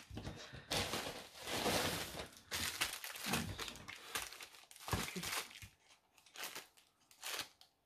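Packaging crinkling and rustling in irregular bursts as items are handled and unwrapped, busiest over the first couple of seconds and sparser toward the end.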